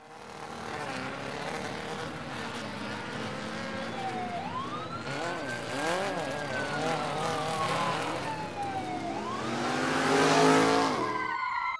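Dubbed motorcycle engine sound effect, revving with a wavering pitch. A siren-like wail rises about four seconds in, falls slowly and rises again near the end. The sound is loudest shortly before it cuts off suddenly.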